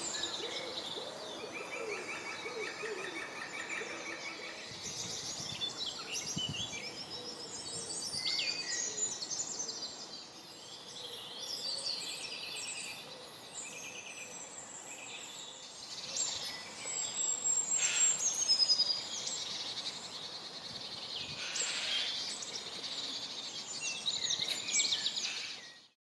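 Several woodland birds singing at once, a mix of trills, chirps and whistled phrases, cutting off suddenly at the end.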